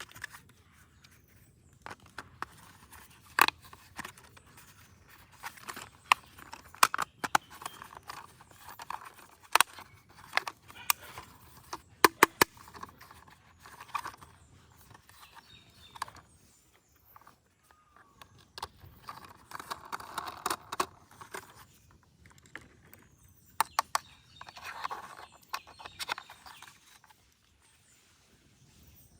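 Plastic toy parts being handled and snapped together: scattered sharp clicks and knocks, with longer stretches of rubbing or scraping about twenty and twenty-five seconds in.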